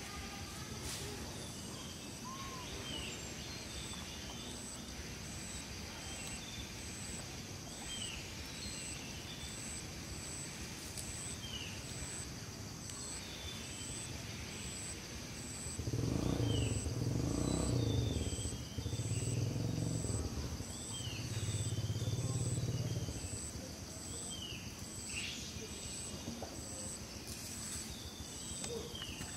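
Forest ambience: a steady high insect drone with a faint pulse about once a second, and short falling chirps every couple of seconds. About halfway through, a louder low rumble swells three times over some seven seconds.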